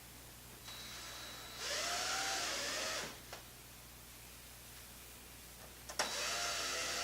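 Power drill/driver driving drywall screws through the aluminum door frame into the wall: two short runs of the motor, the second starting about six seconds in, its pitch rising and sagging as each screw goes in. A few sharp clicks fall between the runs.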